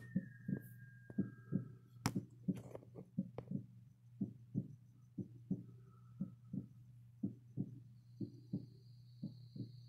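Heartbeat sound effect: a slow double thump, lub-dub, about once a second, over a steady low hum. A few sharp clicks come in the first few seconds, and a thin high whine comes in near the end.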